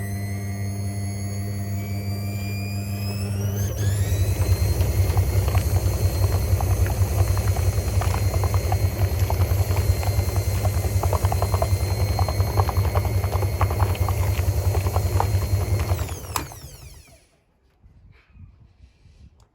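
Hoover H3W69TME washing machine running with a high motor whine that rises in pitch as the drum speeds up about four seconds in, then spinning with a fast rattle. Near the end the motor cuts out and winds down, falling in pitch, and the machine goes quiet.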